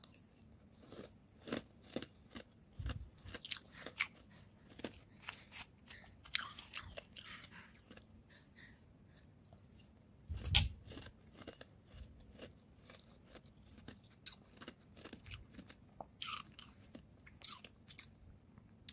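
Close-miked chewing of powdery freezer frost: irregular crisp crunches, with one much louder crunch about halfway through.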